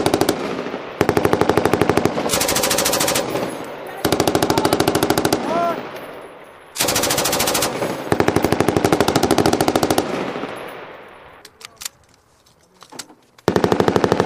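M249 light machine gun firing a series of short bursts of rapid automatic fire, each followed by a fading echo. Near the end there is a lull with a few scattered single shots, then another burst begins.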